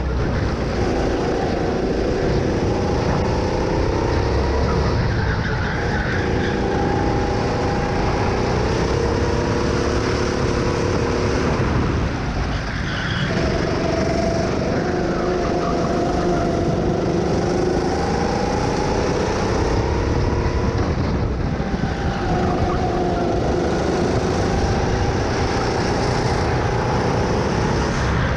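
Go-kart engine running under hard driving, its pitch climbing as it accelerates and falling back as it lifts off for corners. About twelve seconds in it drops away sharply for a slow corner, then climbs again.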